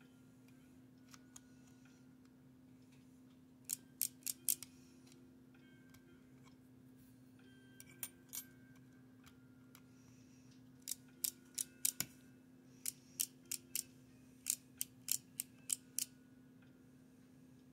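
Sharp small mechanical clicks from the 1941 Argus AA camera's mechanism being worked, coming in quick groups of two to four with pauses between, most of them in the second half.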